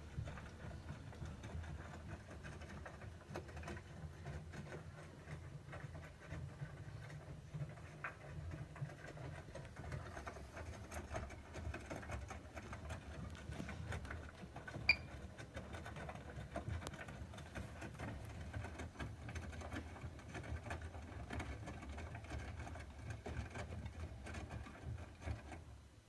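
Siemens IQ300 WM14N190 front-loading washing machine with iQdrive motor running a wash cycle: a steady low motor hum under the patter of wet laundry tumbling in the drum. About 15 seconds in, the control panel gives one short beep as a button is touched.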